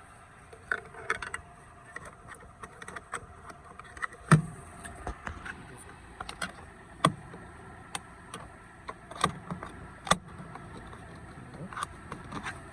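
Irregular clicks and taps of a screwdriver on the screws and plastic panel of a car door as screws are fitted, with one louder knock about four seconds in.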